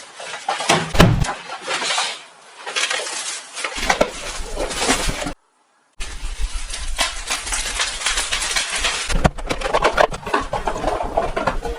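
Product packaging being handled and opened: irregular rustling and crinkling with scattered clicks and knocks, broken by a brief dead silence about five seconds in.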